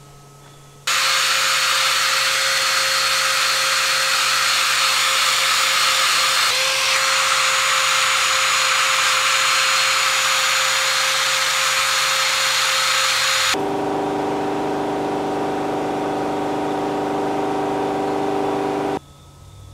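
Power tool running at a steady speed in a workshop: a long, loud hissing whine that starts abruptly, then a sudden change to a lower, steadier hum, which cuts off abruptly.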